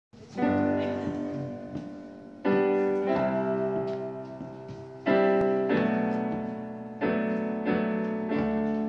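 Slow solo piano music: a chord struck roughly every two and a half seconds and left to ring and fade, with lighter notes in between.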